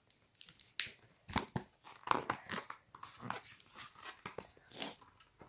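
Soft, irregular rustling, scraping and clicks from a phone being handled close to its microphone.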